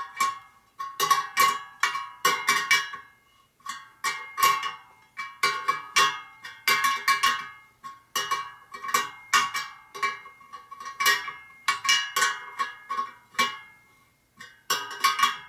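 Spoke wrench clinking on the spoke nipples of a laced chrome motorcycle wheel as the spokes are tightened, the steel spokes ringing with each turn. It comes in short clusters of metallic clicks, about one cluster every second or so.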